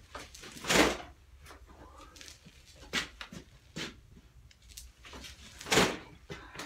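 A sport motorcycle shoved forward and braked hard to pump its front forks: two loud, sudden sounds about five seconds apart, with smaller knocks and shuffles between. The fork pumping forces old oil and dirt out past freshly cleaned fork seals.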